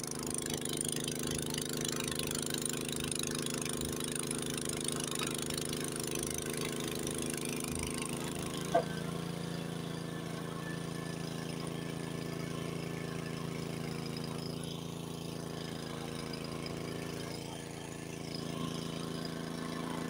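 Engine of a nearly 40-year-old Honda HS80 tracked snowblower running steadily under load while throwing snow, with a hiss above the engine hum. The hiss thins after a short click about nine seconds in.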